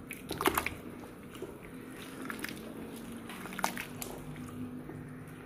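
Rice cooking in a large pot of chicken pulao: soft wet bubbling and squelching, with a few sharp clicks scattered through it.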